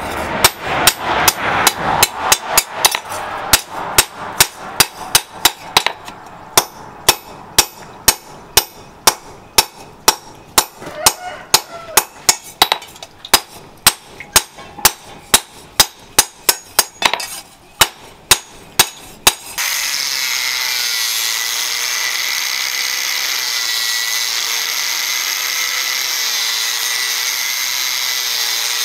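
Hand hammer striking a steel blade cut from a motorcycle disc brake rotor on a steel-post anvil, sharp metallic blows at about two a second. For the last nine seconds or so, an angle grinder with an abrasive disc grinds the blade's edge, running steadily with a high whine.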